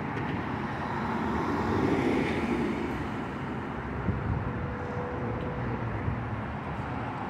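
A car driving past, its noise swelling and fading about two seconds in, over a steady hum of road traffic.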